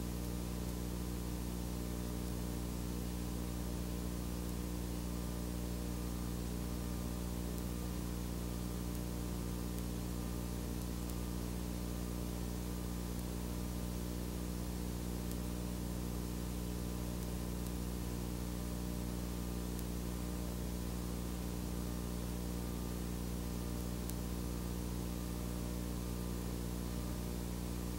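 Steady electrical hum with a stack of overtones under a constant hiss, unchanging throughout; no other sound.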